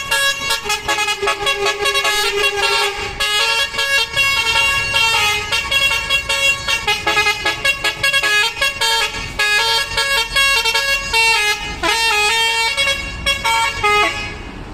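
A bus's Basuri telolet horn, a set of musical air horns, playing a fast melody. The notes change several times a second, and the horn stops shortly before the end.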